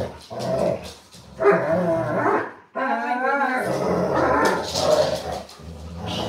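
Dogs growling and barking while they play tug-of-war with a toy, in irregular bursts.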